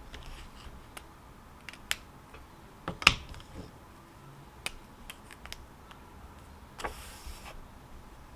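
Scattered light clicks and taps over a faint steady background, the loudest about three seconds in, with a brief rustle about seven seconds in.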